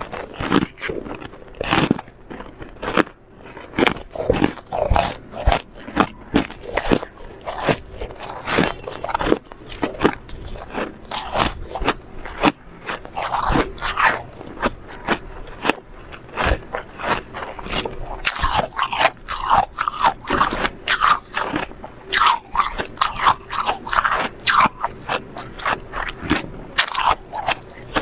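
Close-miked biting and chewing of flaky, refrozen freezer frost chunks: many rapid crunches.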